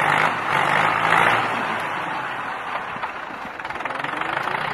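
Farm tractor engine running under load, pulsing loudly about twice a second for the first second or so, then easing to a quieter, steadier run.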